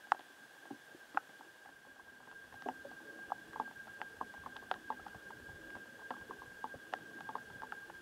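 Water drops pattering in irregular light ticks, a few a second, becoming busier after about two and a half seconds, over a faint steady high whine.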